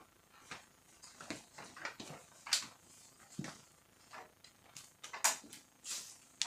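Scattered plastic clicks and knocks as a Canon iR2018 copier's door is worked loose and taken off, the sharpest snap about two and a half seconds in and two more near the end.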